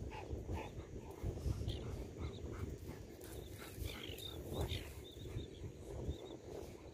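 Faint, short high-pitched bird calls repeated irregularly over a low rumble of wind on the microphone.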